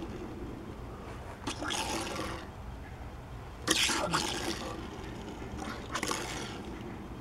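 Die-cast Matchbox toy truck pushed by hand across a hard tabletop: three short rolling and scraping rushes, each starting with a light knock as the truck is set down or shoved.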